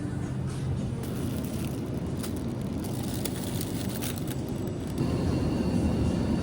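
Steady vehicle rumble and street noise, stepping up in loudness about five seconds in.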